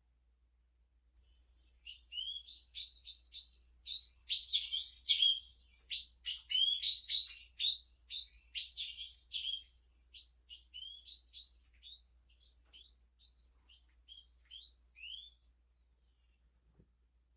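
Small birds chirping busily: many short, quick, upward-sweeping chirps overlapping, starting suddenly about a second in, thinning out and stopping near the end.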